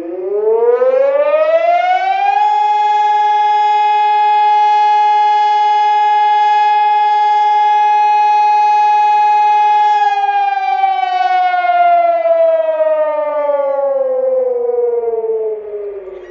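Pavian ELS civil-defence siren sounding a test alarm: one loud tone rising over about two seconds, held steady for about eight seconds, then gliding slowly down and fading near the end.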